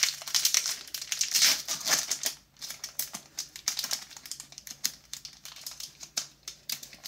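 Foil wrapper of a Pokémon booster pack crinkling and tearing as it is pulled open by hand: a dense run of crackles, loudest in the first two seconds, then lighter crinkling as the cards come out.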